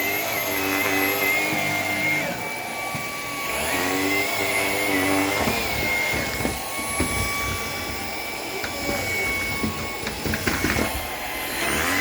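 Shark PowerDetect cordless stick vacuum running, its motor giving a steady high whine, with scattered knocks and rattles in the second half.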